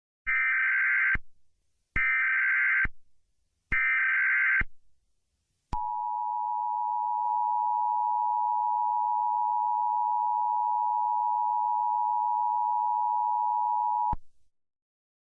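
Emergency Alert System tones: three short bursts of SAME header data, each under a second and about a second apart, then the two-tone EAS attention signal, a steady dual tone held about eight seconds that cuts off suddenly. Together they announce the start of an emergency alert broadcast.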